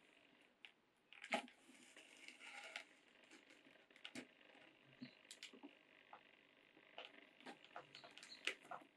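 Faint scratching, rustling and small clicks of hand-stitching a leather knife sheath: needles pushed through the stitch holes and thread drawn tight through the leather. The clicks are loudest about a second and a half in and near the end.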